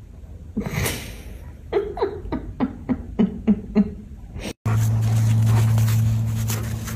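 A dog making a quick run of short honking sounds, each falling in pitch, about three to four a second, after one noisy sniff. Then, about two-thirds of the way through, a sudden cut to a steady low hum.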